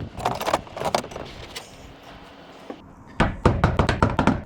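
Clattering knocks and rattles on a tin roof: a short flurry in the first second and a louder, denser run about three seconds in.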